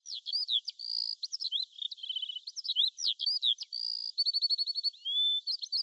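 Several birds chirping and whistling together in quick rising and falling calls, with fast trills about two seconds in and again just after the four-second mark.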